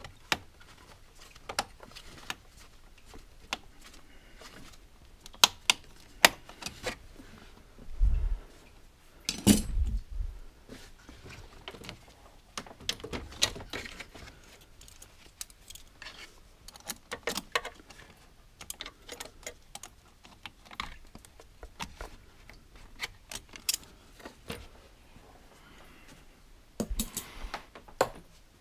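Hand tools and metal parts clinking and knocking irregularly during work on the engine, with a couple of dull thumps about eight and ten seconds in.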